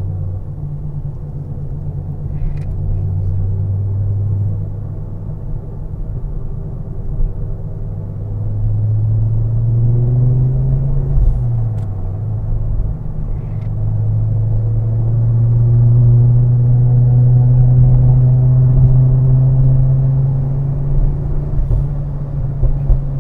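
Turbocharged car engine pulling under way. Its note climbs, dips briefly about halfway through, then rises again and holds steady, with a few faint short clicks.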